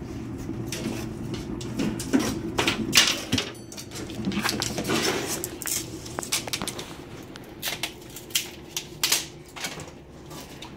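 Kindling fire crackling in a rocket mass heater's feed tube, with irregular sharp cracks and the clatter of wooden sticks being handled, over a steady low hum.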